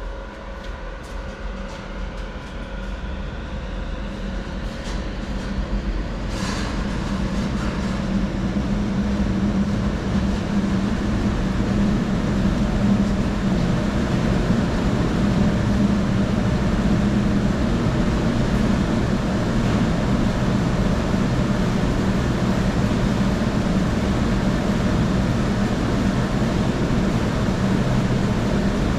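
Workshop dust collector and router running: the machinery spins up with faint rising whines, swelling over the first ten seconds or so, then settles into a steady, even drone. A single click about six and a half seconds in.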